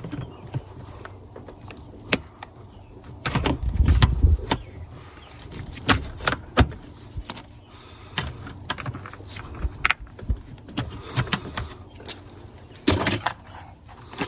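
Irregular clicks and clanks of metal hand tools being handled: pliers and a small T25 Torx bit worked against a tight screw. A louder run of knocks and low thumps comes about four seconds in, and another near the end.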